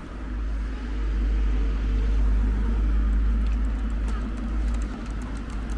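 A car passing on the street: a low rumble that swells over the first second, holds, and fades near the end.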